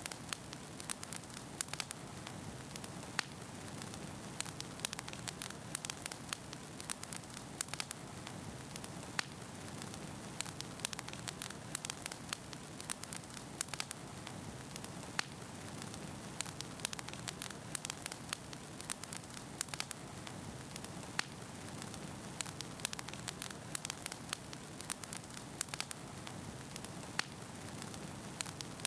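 Wood fire crackling: a steady low rush of flame with frequent sharp pops and snaps scattered irregularly, several a second.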